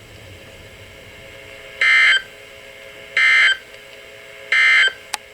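Three short warbling data bursts of the Emergency Alert System's SAME End-of-Message code on NOAA Weather Radio, each under half a second and a little over a second apart, signalling the end of the warning broadcast. A faint steady hum runs beneath them, and a brief click comes near the end.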